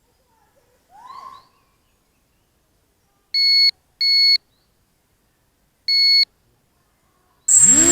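Three short electronic beeps, two close together and a third about two seconds later, then near the end the Emax 250 Nighthawk quadcopter's brushless motors spin up with a quickly rising whine.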